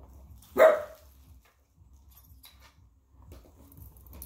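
One short, loud dog bark a little over half a second in, followed by faint handling noises.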